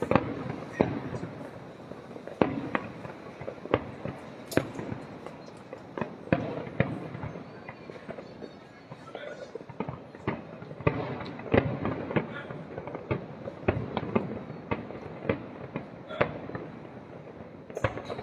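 Aerial fireworks bursting: sharp bangs about one to two a second, irregularly spaced, over a continuous rumble of overlapping explosions and their echoes.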